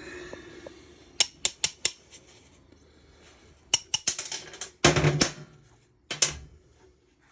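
Sharp metallic clicks and clanks of hand tools. Four quick clicks come first, then a louder clatter about five seconds in and one last clank a second later.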